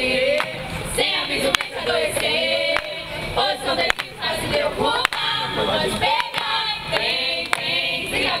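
A group of teenagers singing a parody song together into a handheld microphone, with hand claps keeping time roughly once a second.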